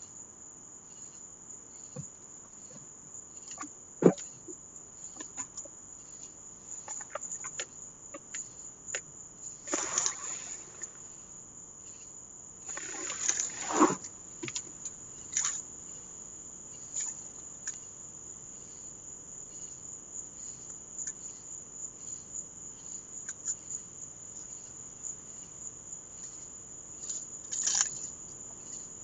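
Crickets chirping steadily in a high, pulsing trill, with scattered knocks and rustles, the loudest around ten and fourteen seconds in.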